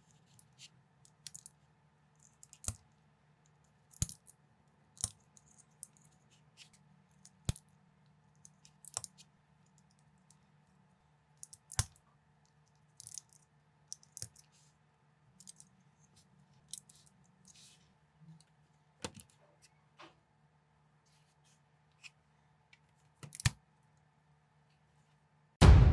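Plastic building bricks clicking and snapping as pieces are picked up and pressed together: irregular sharp clicks, roughly one a second, over a faint steady hum. Loud music with drums cuts in right at the end.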